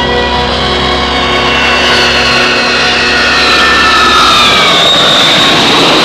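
Four-engine jet airliner landing: the engines' whine falls in pitch as it passes, and a rushing jet noise swells near the end.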